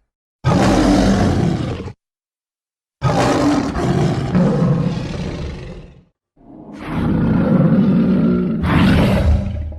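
Stock animal roar sound effects, lion-like, played one after another: a short roar, then a longer one, then a third that swells with another roar cut in near the end. Each stops dead in complete silence, as edited clips do.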